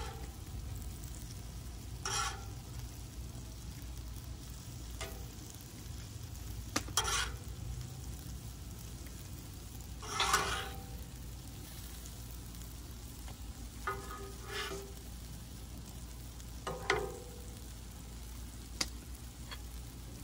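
Steel spatula scraping and turning sizzling chicken fajitas with peppers and onions on a large flat steel griddle: about seven short scrapes a few seconds apart, over a steady low hum.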